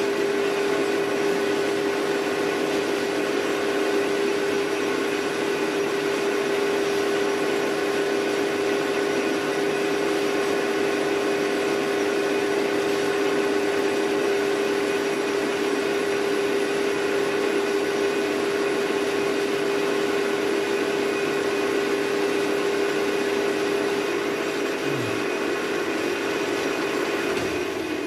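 Metal lathe running at about 1200 rpm, taking a thin turning cut on a phosphor bronze bar, with a steady whine from the drive. In the last few seconds it quietens and winds down.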